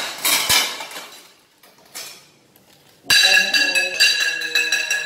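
Metal pots and pans clanking as a steel wok is pulled out of a dish rack. About three seconds in, loud jingly music with a quick steady beat starts.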